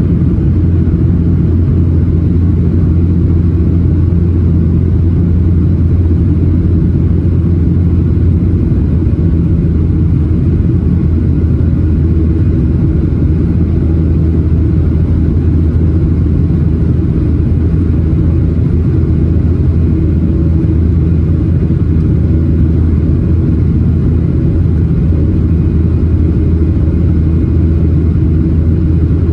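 Steady, loud low drone inside the cabin of a Boeing 737-800: its CFM56-7B jet engines and the airflow around the fuselage, running evenly with no change in pitch.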